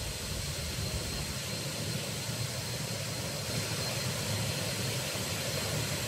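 Waterfall and cascading stream water pouring, a steady, even rushing sound.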